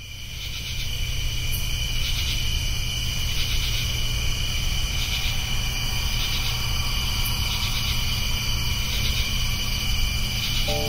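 Insects chirping in a steady, pulsing chorus that fades in over the first second, over a steady low rumble.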